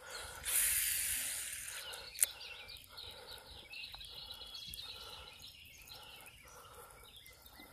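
Fishing reel casting and retrieving a spinnerbait: a hiss of line paying out that fades over about a second and a half, a sharp tick about two seconds in, then an even, rhythmic reel retrieve. Faint bird chirps behind.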